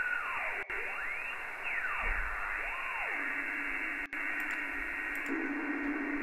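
Noisy radio-style audio played through an ADAU1701 DSP board's delay-and-subtract noise filter: hiss cut off above about 3 kHz, with a whistling tone that glides up and down several times. From about halfway through a low steady tone takes over, and the sound drops out for an instant twice.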